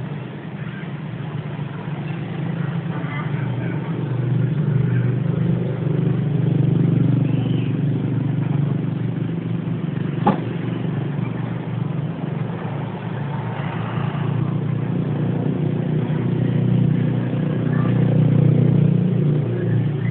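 A steady low droning hum that swells and eases slowly, with one sharp click about ten seconds in.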